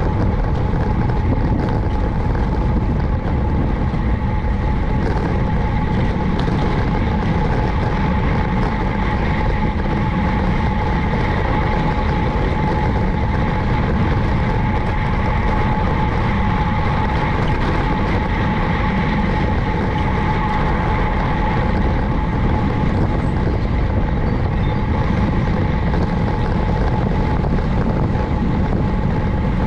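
Steady wind and road noise from riding a road bicycle, with a constant thin high hum over it.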